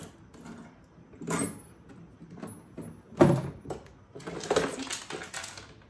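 Hard saddlebag of a Harley-Davidson Road King being worked loose and lifted off its mounts: a short rustle about a second and a half in, a sharp clunk about three seconds in as it comes off, then a second of scraping and shuffling as it is handled.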